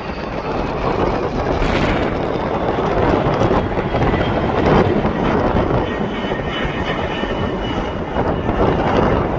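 Airplane engines running loud and steady, with a faint high whine over the roar.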